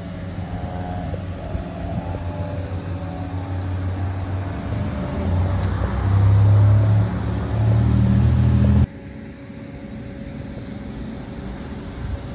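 A classic car's engine running with a steady low rumble that grows louder, with two louder spells around the middle. The engine sound stops suddenly about nine seconds in, leaving a quieter hiss.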